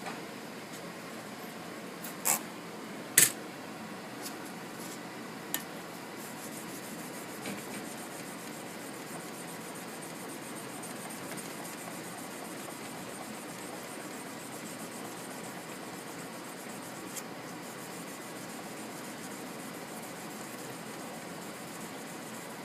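Sandpaper rubbing steadily over a blade, an even rasping scrape, with two sharp clicks a few seconds in.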